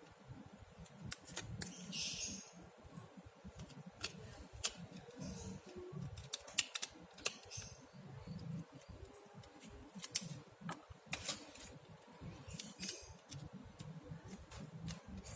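Small parts being handled and worked on: scattered sharp clicks and taps, with a few short scratchy scraping sounds, as in taking apart or refitting a phone's plastic and metal parts.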